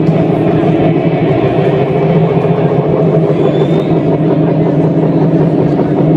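Loud live indie-rock band music heard from the audience, muddy and distorted, with a steady held drone of sustained tones.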